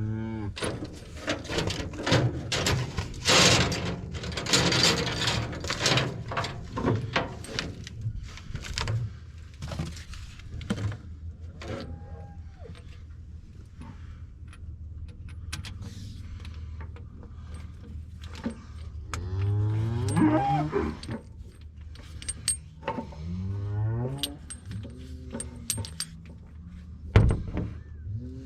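Cattle mooing several times: a short call, a long loud one past the middle, and more near the end. A run of metallic clanks and rattles fills the first third.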